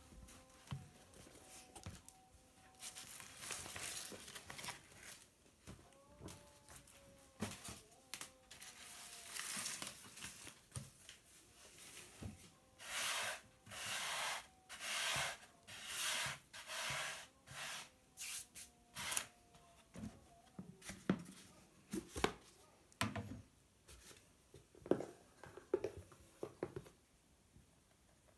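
Hands at work on a floured kitchen table: a run of rustling, scraping strokes about one a second, then scattered light knocks near the end.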